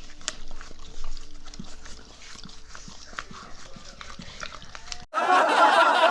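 Siberian husky making small mouth noises, licking and smacking with many short wet clicks. About five seconds in, the sound cuts abruptly to something much louder and wavering.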